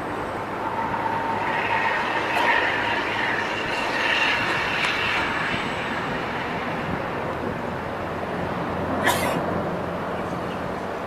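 NAS332 Super Puma military helicopters flying at a distance: a steady rumble of turbine and rotor noise with a faint steady high tone. A short burst of noise comes about nine seconds in.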